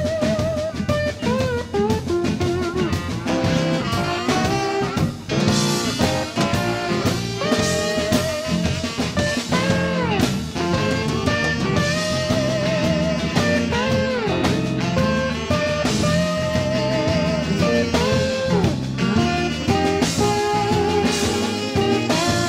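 Live blues band playing: a lead guitar line with bent, wavering notes over drum kit and bass.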